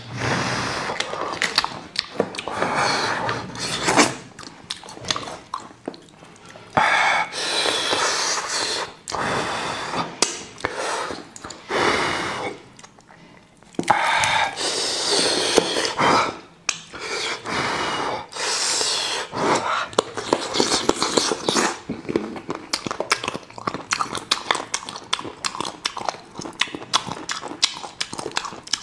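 Close-miked mukbang eating: wet chewing, slurping and lip-smacking as sauce-covered sheep's head meat is torn apart by hand and eaten, with noisy breaths between mouthfuls. The smacking turns into a fast run of short wet clicks in the last third.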